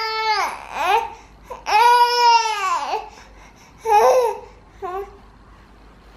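A baby crying in angry frustration: two drawn-out wails, each rising and then falling in pitch, followed by two short whimpers near the end.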